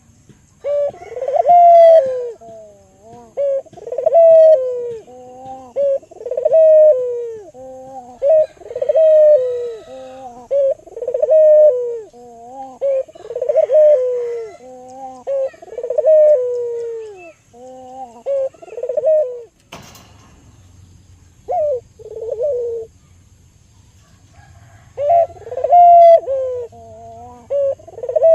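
Albino local puter dove cooing, a run of repeated rolling coo phrases about one every one to two seconds. About two-thirds of the way in there is a sharp click and a low hum, a short pause, then the cooing starts again near the end.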